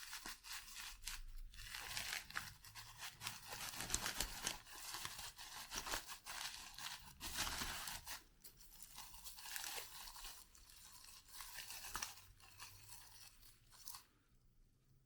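Packaging crinkling and crackling as it is handled and pulled open to unwrap a small graphics card, with many short sharp crackles; the handling stops near the end.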